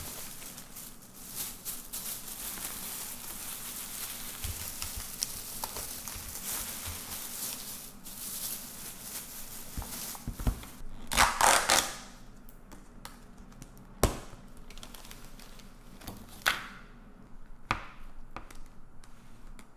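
Thin plastic carrier bag rustling and crinkling as groceries are pulled out of it, with a louder burst of crinkling about halfway through. Near the end come a few sharp clicks and knocks of a clear plastic food container being handled and set down.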